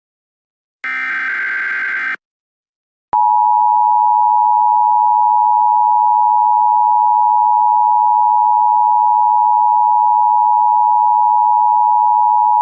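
EAS SAME digital header burst, a harsh one-second data screech about a second in. After a short gap comes the steady EAS attention tone, held unbroken from about three seconds in, signalling the start of a new emergency alert.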